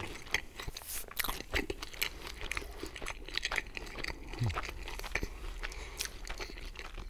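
Close-miked eating of pizza: biting and chewing with many small wet clicks and crackles.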